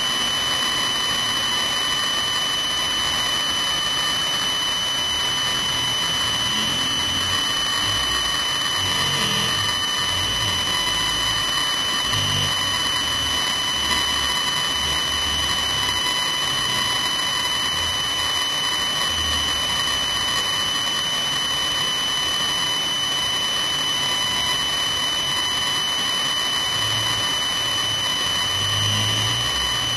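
Helicopter turbine whine, a steady high-pitched tone that holds at the same level throughout, with a faint low rumble that comes and goes.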